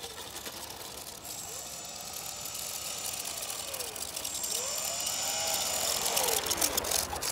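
Electric motor and propeller of an ultra-micro RC biplane whining as it taxis, the pitch swooping up and down several times as the throttle is blipped. It grows louder as the plane comes closer.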